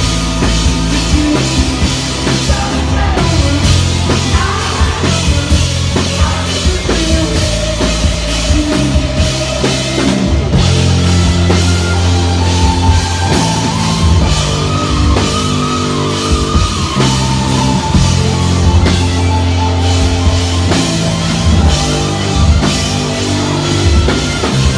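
Rock band playing a song live and loud, with a full drum kit, bass and amplified guitars.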